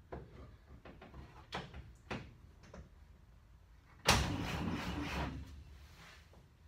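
Light clicks and knocks of hand work in an old pickup's engine bay, then a sudden louder clatter about four seconds in that lasts about a second and fades.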